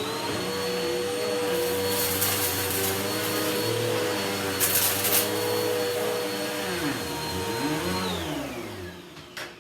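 Dirt Devil Breeze Cyclonic upright bagless vacuum cleaner running: the motor starts with a rising whine and runs at a steady high whine, with brief crackles about two and five seconds in. About eight seconds in it is switched off and the whine falls as the motor spins down.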